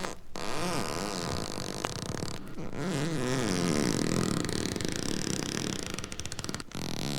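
Spooky sound effect from a haunted-house effects record: a low, wavering pitched sound that swoops up and down again and again over a noisy backdrop, with brief breaks between passages.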